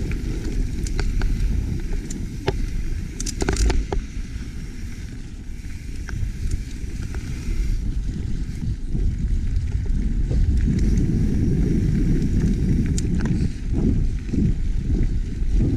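Rumble of wind on the microphone while riding a YT Capra mountain bike down dirt singletrack, with tyres on loose dirt and sharp clicks and rattles from the bike over bumps. The rumble gets heavier about halfway through, and the rattling comes in clusters about 3 seconds in and again near the end.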